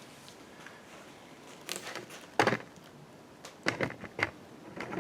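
A few sharp metallic clicks and clinks, the loudest about halfway through and a quick cluster near the end, as needle-nose pliers grip and work a stuck valve lifter out of its bore in the engine block.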